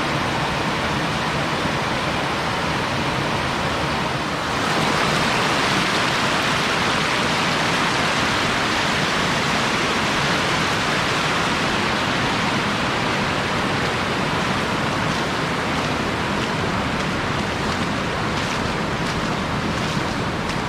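Steady rush of river water flowing over rocks, growing louder about four and a half seconds in and then holding.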